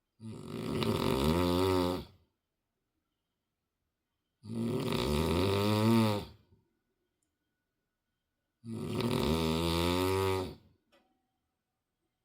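A sleeping person snoring: three long snores of about two seconds each, roughly every four seconds, the pitch wavering toward the end of each, with very quiet pauses between breaths.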